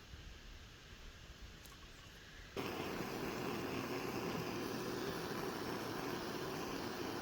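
A heat gun switched on about two and a half seconds in, blowing steadily to shrink heat-shrink tubing over crimped wire connectors. Before that, only faint low noise and a few small clicks.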